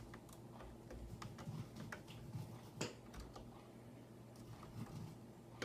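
Faint, scattered light clicks and taps of a small screwdriver and screw working in a laptop's screen assembly, with one sharper click about three seconds in.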